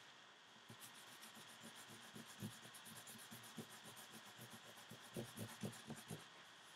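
Faint, quick repeated strokes of a pen or pencil drawing on paper, several a second.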